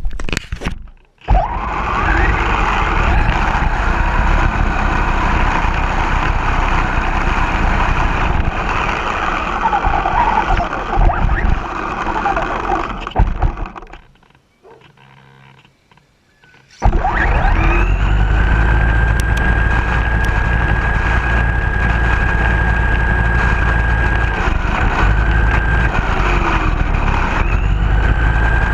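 Radio-controlled car running, with a loud steady mix of motor and driving noise. The noise stops about 14 seconds in, goes nearly silent for about two and a half seconds, then starts again with a steady whine that holds, dipping briefly a few times.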